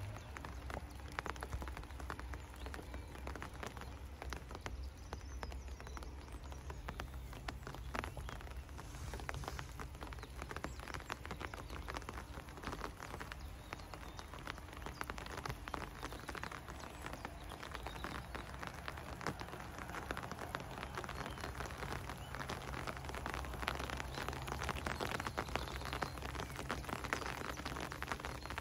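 Rain pattering: a dense, steady run of small drop ticks, getting a little louder in the last few seconds.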